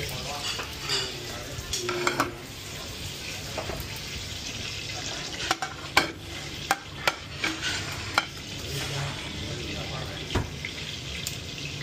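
Busy restaurant kitchen: a steady hiss of food cooking under sharp clinks of metal utensils and plates, several in quick succession around the middle.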